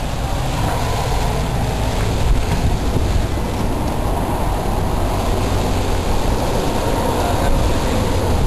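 Blizzard wind blowing steadily and hard, buffeting the microphone with a continuous low rumble.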